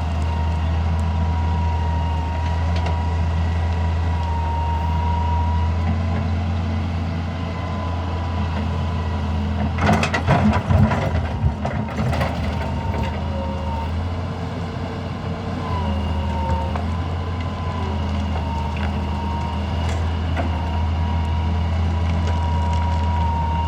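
Hitachi EX200 excavator's diesel engine running steadily under work, with a steady high whine above the low engine hum. About ten seconds in, a burst of clattering knocks lasts about two seconds.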